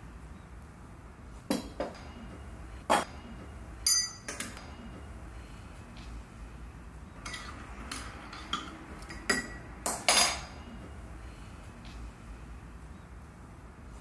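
A metal spoon and a stainless steel pot and lid clinking against a ceramic coffee mug: about a dozen separate sharp clinks and taps, a few coming quickly one after another around eight seconds in, the loudest near three and ten seconds in.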